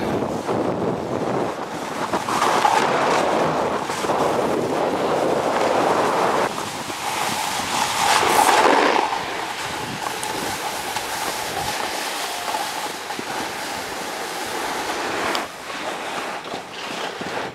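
Wind buffeting the camera's microphone during a fast ride down a ski slope: a steady rushing noise that swells to its loudest about eight seconds in and drops back after about fifteen seconds.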